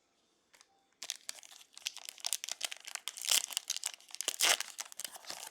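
Trading-card pack wrapper crinkling and tearing as it is ripped open and handled, a dense run of rapid crackles starting about a second in.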